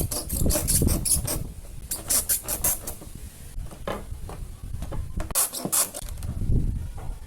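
Scratchy scraping of a metal fan grille being worked by hand: quick strokes in bursts, with a sharper knock about four seconds in.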